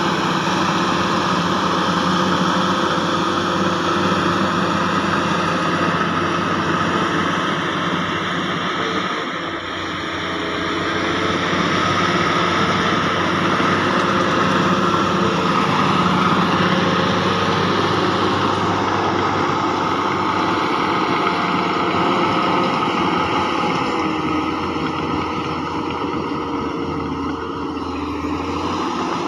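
Heavy diesel engine of earthmoving machinery running steadily. It eases off briefly about nine seconds in, then builds back up.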